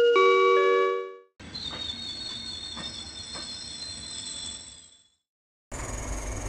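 A multi-tone railway station chime rings for about a second. Then a train pulls in with a rumble, a high brake squeal and a few wheel clacks, fading out about five seconds in. After a brief gap, the steady rumble and high whine of the standing train start as its sliding doors open.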